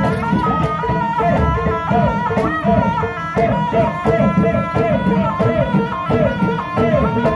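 Live jaranan gamelan ensemble playing: kendang drums beating a steady rhythm under gongs and a pitched melody.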